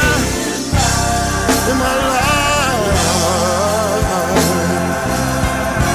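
Gospel song: a singer holds notes with vibrato over a steady bass line and drum beat.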